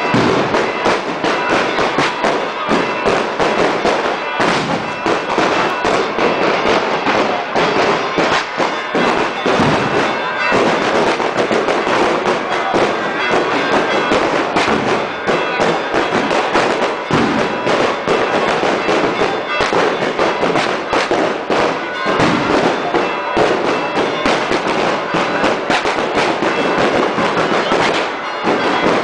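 Firecrackers going off in a dense, continuous barrage of rapid bangs and crackling, with no pause.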